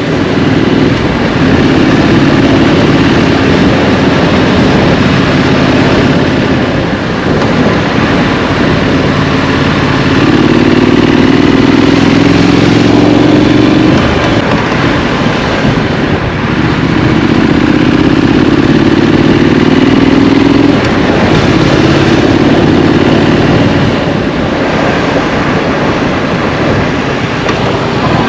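Street scrambler motorcycle engine, ridden through town: it pulls up in pitch twice under acceleration, then drops back between pulls, over a steady rushing noise.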